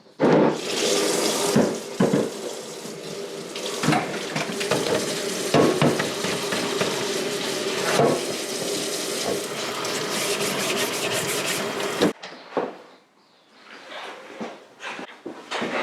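Water running from a tap into a sink or container, with a few knocks over it; about twelve seconds in the water is shut off suddenly, followed by a few light knocks and clatter.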